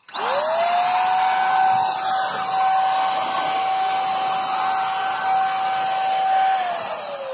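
Buildskill Pro BPS2100 750 W HVLP electric paint sprayer's turbine motor starting up with a quickly rising whine, then running steadily with a hiss of air and spray. Near the end it winds down with a falling whine.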